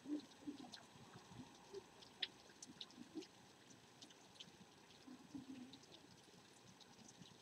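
Faint rain: scattered drops ticking irregularly over a soft hush, close to silence.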